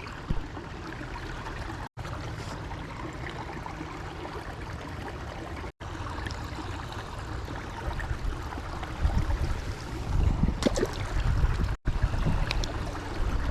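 Creek water running steadily, broken by three brief dropouts, with louder low rumbling and a few knocks in the last few seconds.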